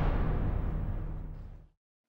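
Dying tail of a logo-intro sound effect, a deep boom-and-whoosh that fades away steadily and cuts to nothing about three-quarters of the way through.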